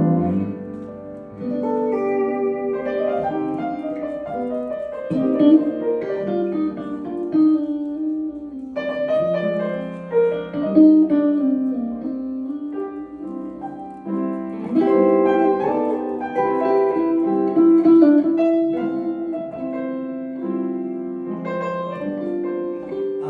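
Piano playing an instrumental break in a song, a melody of single notes over chords.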